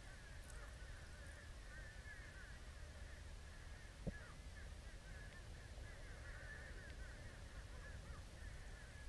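Muffled underwater sound picked up by a submerged camera: a steady low rumble with faint, continuous high chirping, and one sharp click about four seconds in.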